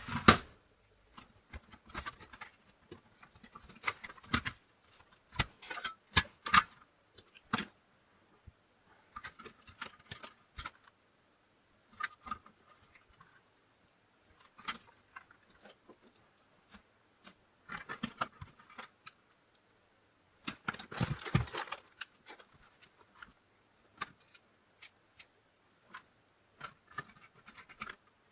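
Irregular clicks, taps and scrapes of plastic and metal parts being handled while a Commodore 64 is put back together in its case, with a short clattering flurry about two-thirds of the way in.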